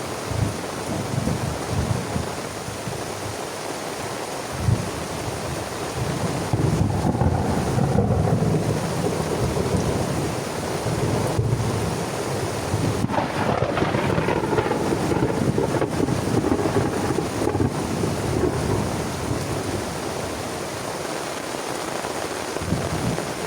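Heavy rain falling steadily while thunder rumbles, the rumbling swelling about six seconds in and again near the middle.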